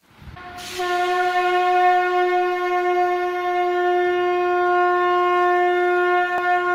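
A conch shell (shankha) blown in one long, steady note that starts about half a second in and is held throughout.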